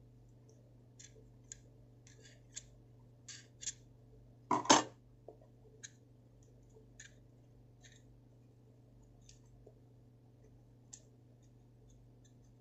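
Small sharp clicks and snips of hands working the cotton and wick of a Zippo-style lighter insert, with a louder double knock about four and a half seconds in.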